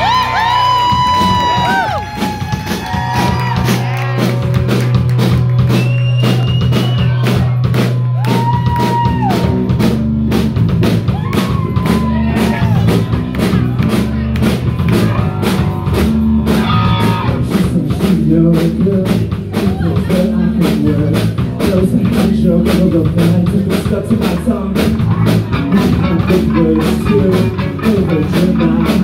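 A live rock band playing a punk/emo cover: electric guitar, bass guitar and drum kit, with a singer's voice on top, clearest in the first twelve seconds or so.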